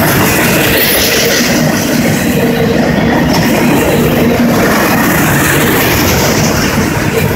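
Double-stack intermodal well cars of a freight train rolling past close by: a loud, steady rumble and clatter of steel wheels on rail.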